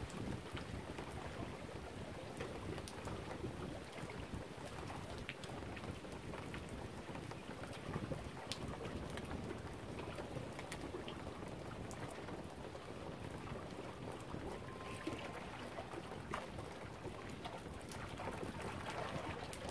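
Steady outdoor wind-and-water noise at the lough shore: an even rushing hiss with scattered faint ticks.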